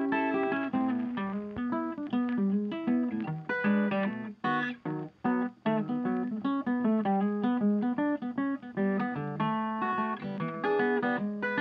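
Background music of plucked acoustic guitar, a run of quick notes and chords.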